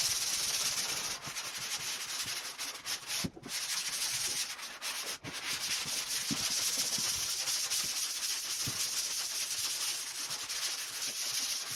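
Fine-grit 3M sanding pad rubbed by hand over a drywall repair patch: a continuous scratchy hiss of stroke after stroke, with brief pauses about three and five seconds in.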